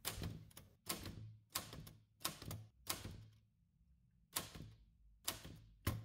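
1927 Remington 12 manual office typewriter typing slowly, one key at a time: about eight separate typebar strikes, each a sharp clack with a short rattle after it, with a pause of over a second near the middle.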